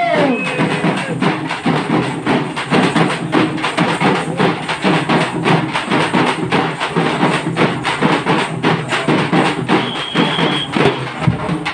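A group of large double-headed drums beaten with sticks in a fast, dense, driving rhythm.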